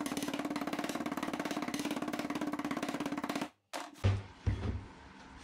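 Soapstone being crushed with a hammer inside a plastic conduit on a steel plate: fast, even strikes, about a dozen a second, that stop suddenly about three and a half seconds in. Two dull thumps follow as tools are set down.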